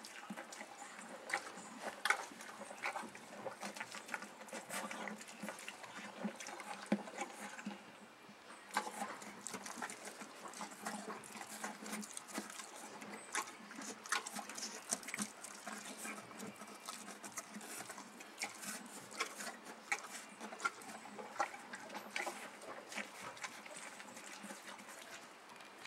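Horse eating feed from a rubber bucket: irregular crunching chews and the muzzle knocking about in the bucket, with a brief lull about eight seconds in.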